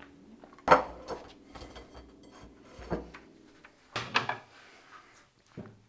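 Kitchen handling noises: a few sharp knocks and clicks of containers and crockery being handled, the loudest about a second in and a quick pair around four seconds in.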